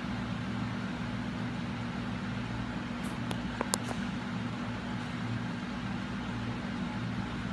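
Steady low mechanical hum, with a few faint clicks a little past the middle.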